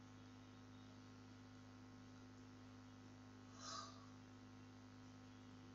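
Near silence with a steady electrical hum on the recording, and one brief faint sound a little over halfway through.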